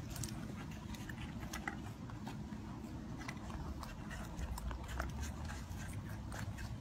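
Rabbits, a tortoise and an iguana eating raw carrot, apple and kale pieces from one platter: many small, irregular crunches and bites.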